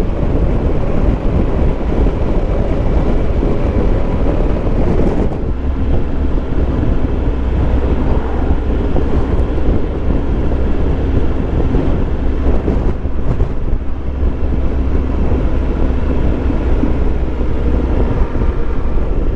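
Wind rushing over the microphone of a moving motorcycle, with the low drone of the Triumph Tiger Explorer 1200's three-cylinder engine underneath. About five seconds in the hiss eases and the low rumble grows stronger.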